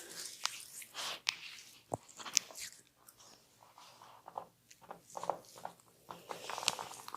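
Hands rubbing and kneading an oiled scalp and hair, making soft wet crackles with scattered sharp clicks.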